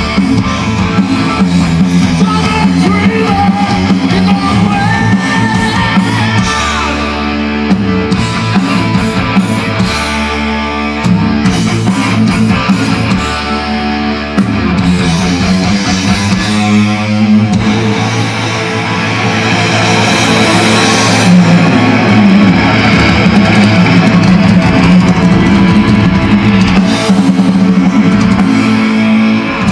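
Live heavy metal band playing loudly: distorted electric guitars, bass and drum kit, with a gliding lead guitar line about five seconds in.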